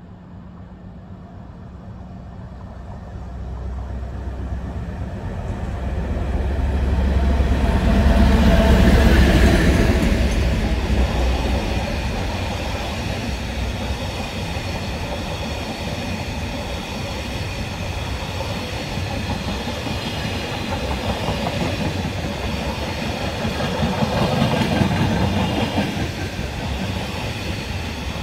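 A Class 56 diesel locomotive approaches and runs through hauling empty intermodal flat wagons. The engine's deep drone builds and peaks about eight to ten seconds in. Then the wagons roll past with a steady rumble and wheel clatter, swelling again briefly near the end.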